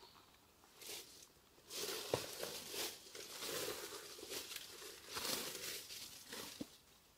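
Footsteps crunching and rustling over the forest floor in an uneven run of steps, with a couple of sharp snaps among them.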